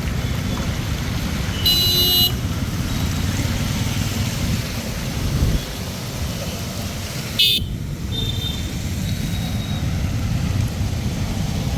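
Road traffic: a steady rumble of passing vehicles, with a short horn toot about two seconds in and a brief sharp sound about seven and a half seconds in.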